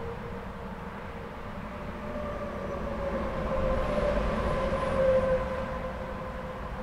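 Highway traffic crossing an overpass: a steady rumble of tyres and engines with a humming tone over it, swelling as a vehicle passes about five seconds in, then easing off.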